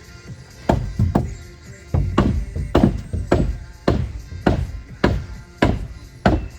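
Music with a steady beat, a little under two beats a second.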